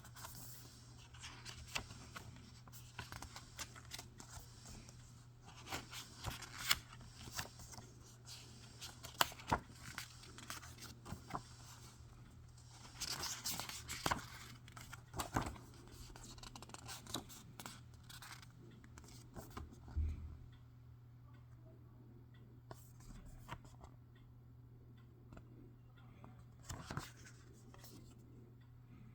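Blu-ray packaging being torn open and the plastic cases handled: a run of scrapes, rustles and sharp clicks, with a longer tearing sound a little under halfway. The handling thins out near the end.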